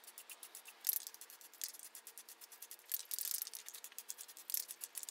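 Rust-Oleum camouflage sand aerosol spray paint can, its mixing ball rattling in quick clicks, broken by short hisses of spray about a second in, around three seconds in and near the end.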